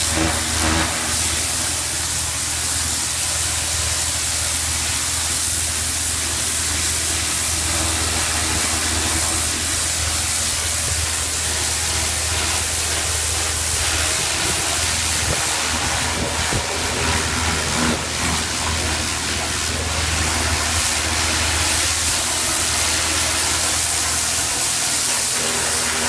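Pressure washer running continuously: a steady low motor hum under the hiss of the high-pressure jet spraying onto concrete.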